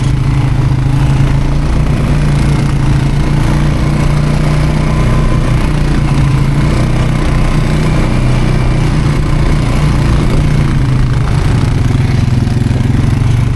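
ATV engine running steadily and close to the microphone, its low drone holding nearly even throughout.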